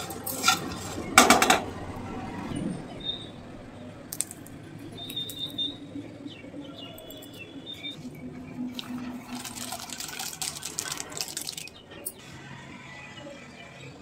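A metal spoon stirring and scraping dry puffed rice in a pan. The rice rustles, with a few sharp clinks about a second in and a dense stretch of crackling clatter a little past halfway.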